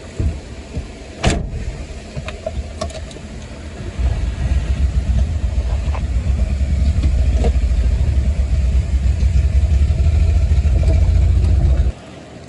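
A vehicle running: a loud, steady low rumble sets in about four seconds in and cuts off suddenly near the end. It follows a few sharp knocks and clunks in the first seconds.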